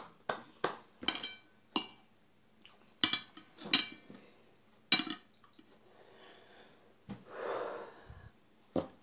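A metal fork clinking and tapping against a china plate several times over the first five seconds, each clink ringing briefly. About seven seconds in comes one long breath out, and there is a last faint click near the end.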